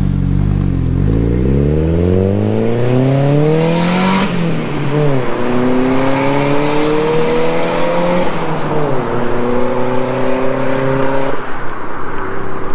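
Proton Wira's turbocharged four-cylinder pulling away and accelerating hard through three upshifts, its pitch climbing in each gear. There is a short high hiss from the turbo wastegate at each gear change. The exhaust note is kept subdued by an S-Flow muffler.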